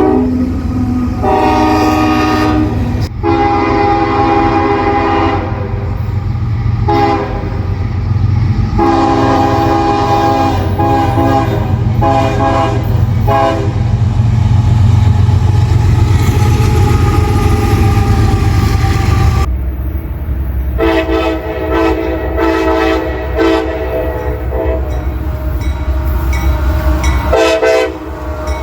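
Multi-note train horn sounding a series of blasts of varying length, over the low rumble of a train. For about five seconds in the middle only the rumble is heard, then the horn sounds again in another run of blasts.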